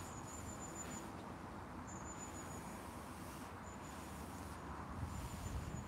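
An insect chirring: a high, thin buzz that lasts about a second and comes four times with short gaps, over quiet outdoor background.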